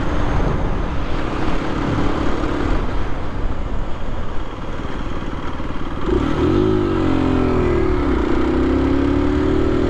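Aprilia RS 125's single-cylinder four-stroke engine running under way, with wind and road noise. Its steady note fades under the noise about three seconds in, comes back about six seconds in with a dip and rise in pitch, then climbs slowly as the bike pulls on.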